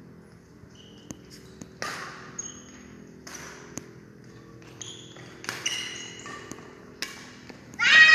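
Badminton rally: sharp hits of rackets on a shuttlecock about a second apart, with short squeaks of sneakers on the court floor in between. A loud squeal with a falling pitch comes near the end.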